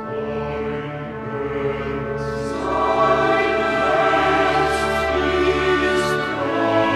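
Background music: sustained orchestral chords with a choir, getting louder about two and a half seconds in.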